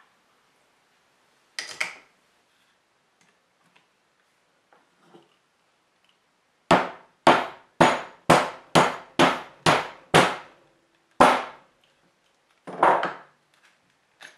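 Hammer striking a steel rivet setter to set copper rivets in leather on a small anvil: nine sharp metal strikes, about two a second, the last after a short pause.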